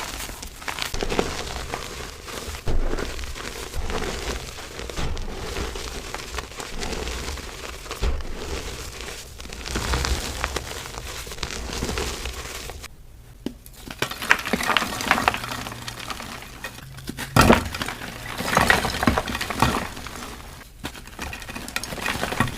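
Soft reformed blocks of gym chalk crushed and crumbled by hand: dense crunching and crackling, broken by a short pause about 13 seconds in before it starts again, louder.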